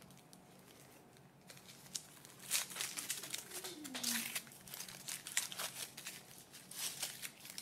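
Thin foil wrapper of a Kinder Surprise chocolate egg crinkling and tearing as it is unwrapped by hand, starting about two seconds in.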